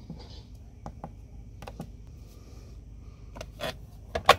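Keypad buttons pressed on a Husqvarna Automower robot lawn mower, a few soft clicks, then the plastic hatch lid over the keypad pushed shut with a couple of sharp clacks near the end, the closing that starts the mower.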